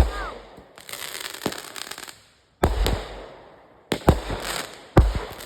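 Consumer fireworks going off: several sharp bangs a second or so apart, each followed by a spell of crackling that dies away.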